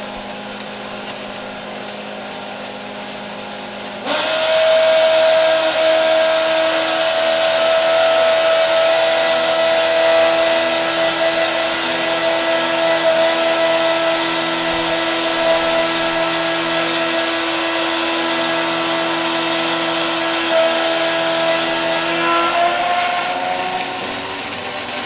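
12-volt electric water pump driving a cone spray nozzle: a steady motor whine over the hiss of the spray. About four seconds in it steps up louder and higher in pitch as the flow is turned up. Near the end the pitch rises as the pump runs out of water.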